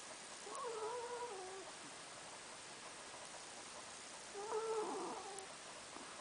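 A sleeping pet snoring: two drawn-out snores with a wavering, whistly pitch, about three and a half seconds apart.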